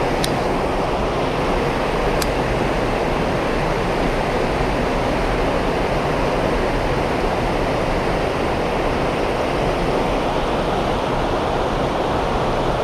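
Water pouring over a low concrete weir into a stream, a steady rush with no let-up. Two faint ticks sound in the first couple of seconds.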